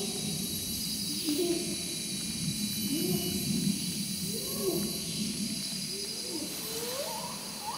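A series of animal hooting calls ringing through the rainforest, each one a curved whoop, climbing higher in pitch and coming faster toward the end. Underneath runs a steady high-pitched drone of jungle insects.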